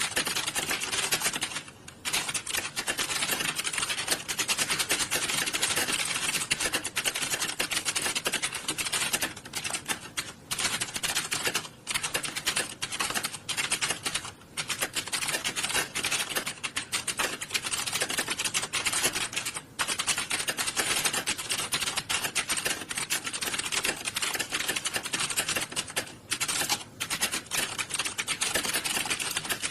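Many computer keyboards being typed on at once: a dense, continuous clatter of keystrokes, with a few brief lulls.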